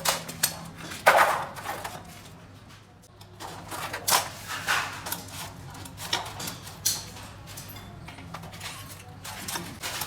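Sheet-metal stove parts being handled and worked: irregular metallic clicks and knocks, a sharper cluster about a second in, over a steady low hum.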